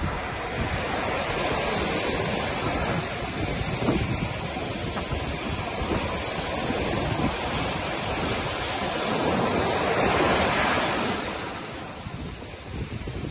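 Ocean surf washing up onto a sandy beach: a steady wash of small breaking waves that swells to its loudest about ten seconds in, then eases off.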